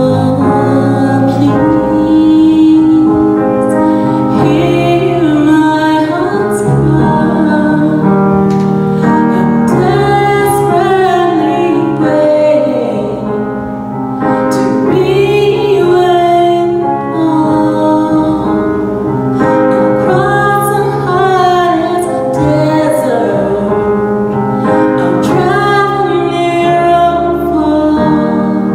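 Gospel worship song sung by a small praise team, led by women's voices, over held keyboard chords.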